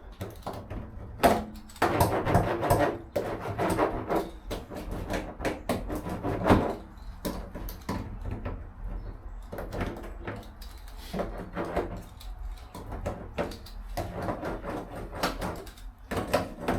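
A hand roller pressed back and forth over butyl sound-deadening mat on a van's metal wheel well: irregular rubbing strokes and knocks, some with a short squeak or ring, as the mat is rolled flat to push out air pockets.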